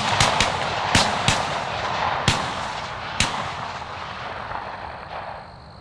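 A volley of shotgun shots from several hunters: about six sharp blasts in the first three and a half seconds, coming quickly at first and then further apart, the last about three seconds in.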